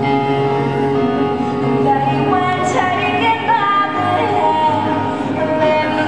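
Recorded music with a woman singing, playing as the skater's program music for her ribbon routine.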